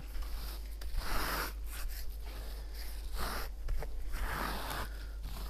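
Steel spatula scraping facade adhesive across a mineral wool slab in repeated sweeping strokes, about one a second. A thin coat is being skimmed into the wool so that the glue dabs laid on later will not come away from it.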